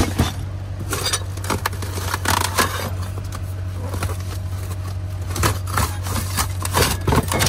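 Rummaging through discarded goods in a dumpster: irregular scraping, crinkling and knocking of boxes and packaging, busiest near the end, over a steady low hum.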